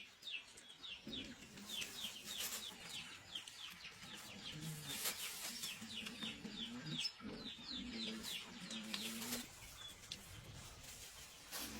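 Chickens: chicks peeping in a steady run of short, high, falling notes, about three or four a second, with lower clucking from about one to nine seconds in.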